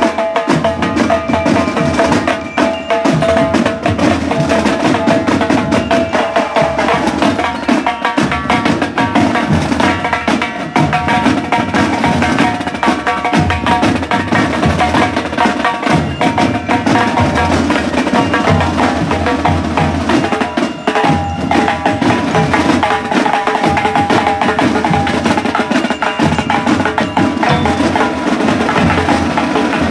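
Marching band drumline of snare drums played with sticks in a fast, busy, continuous beat, with sharp clicking stick strokes and some held tones above.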